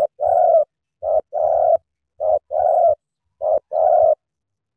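Spotted dove cooing: a short note followed by a longer one, repeated four times about once a second, stopping about four seconds in.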